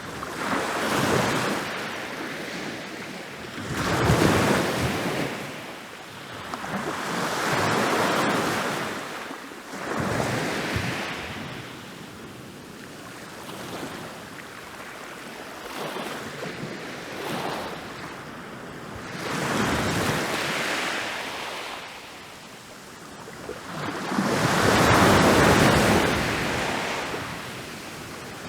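Ocean waves rolling in and crashing on a beach, the surf swelling and washing back in about six surges. There is a calmer stretch of low wash in the middle, and one of the largest breaks comes near the end.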